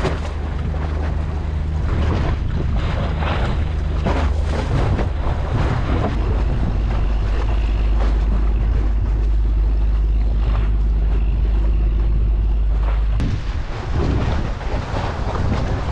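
Wind buffeting the microphone and choppy sea washing against a concrete tetrapod breakwater, under a low steady drone that stops abruptly about thirteen seconds in.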